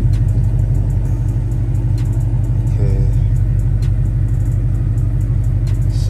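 Ford Mustang GT's 5.0-litre V8 idling steadily, a low even rumble heard from inside the cabin.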